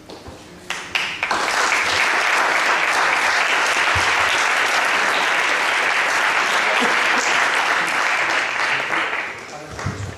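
Audience applauding: a few scattered claps, then dense, steady applause that fades out near the end.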